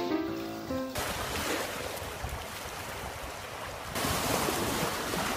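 Surf breaking on a shore, with wind buffeting the microphone. About four seconds in it jumps to louder waves splashing over driftwood.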